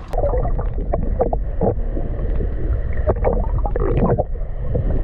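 Wind rumbling on the microphone aboard a boat at sea, with irregular water sloshing and splashing around the hull.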